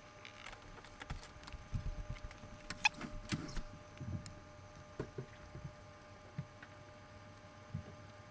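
Small metal camera dial parts being picked up, fiddled with and set down on a workbench: scattered light clicks and taps with soft knocks of hands on the bench, busiest in the first half and sparser toward the end.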